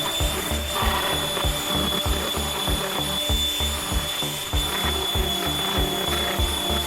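Background music with a steady, driving beat and bass line.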